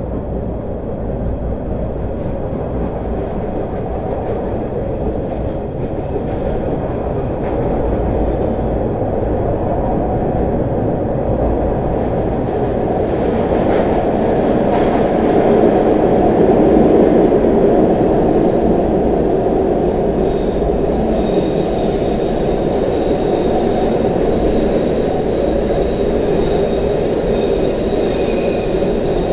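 MBTA Orange Line Hawker Siddeley 01200-series subway car running at speed, heard from inside the car: a continuous rumble of wheels on rail that swells to its loudest about halfway through. In the second half, thin high whining tones join the rumble.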